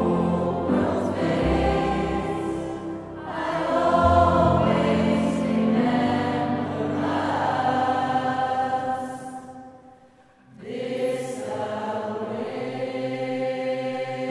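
Mixed choir singing with piano and violin accompaniment. The sound dies away about ten seconds in, then the choir and instruments come back in.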